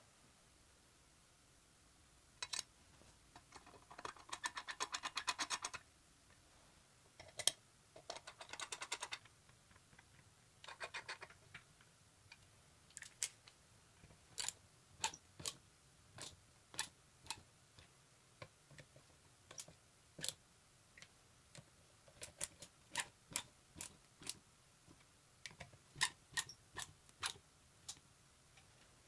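Hand work on small metal parts: three bursts of fast, evenly spaced clicking, like a ratchet or a part being spun, then many separate light clicks and taps.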